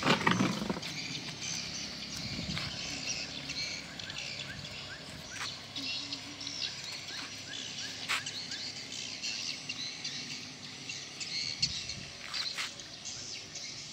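Small birds chirping continuously in quick short notes, with a few sharp clicks in between.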